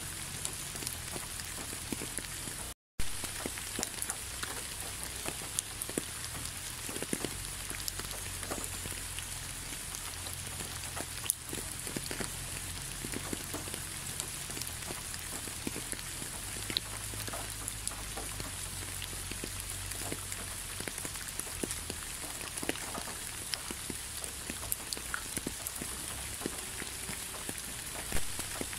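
Steady rain falling, with many single drops ticking close by over an even hiss. About three seconds in the sound cuts out completely for a split second and comes back with a sharp click.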